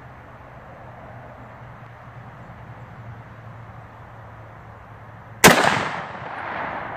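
A single .243 rifle shot about five and a half seconds in: a sharp crack followed by a long echo that slowly fades. Before it, only a steady low hum in the background.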